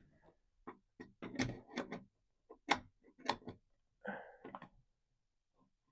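Irregular small clicks and ticks of a wrench and nut as the nut is snugged down on a replacement truck-topper lock cylinder.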